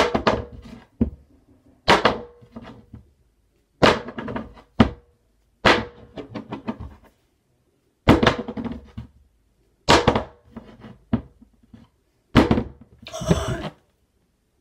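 A roll of electrical tape is flipped and lands on a tabletop over and over, about every two seconds, each landing a sharp thunk followed by a short rattle as it bounces and settles. Near the end the roll lands upright and a short gasp of surprise follows.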